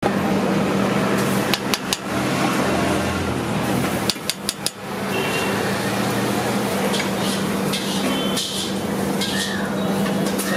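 Steel plates and lids clinking and clattering as they are handled, in two short groups of sharp knocks in the first half. Then a ladle spreads dosa batter in circles across a hot flat griddle, making soft repeated scraping swishes. A steady low hum runs underneath.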